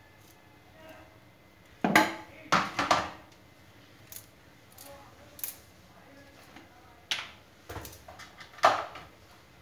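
A spoon clinking and knocking against a glass mug and a bowl as ice cream is scooped into a strawberry shake, in several sharp strikes: a cluster about two to three seconds in, a few lighter ones, and another cluster near the end.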